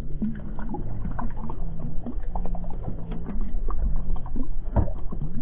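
Water slapping and gurgling against a kayak hull on open ocean, with scattered small knocks and splashes and a stronger knock near the end. Low drawn-out tones run under it, shifting in pitch.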